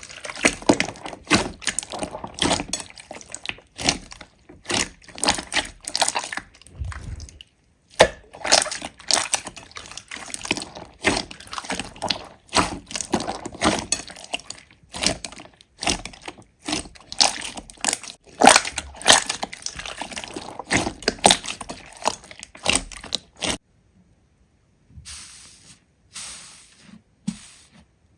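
Slime being squished and worked by hand, making dense, rapid crackling and popping clicks. The sound stops briefly twice, and is fainter near the end.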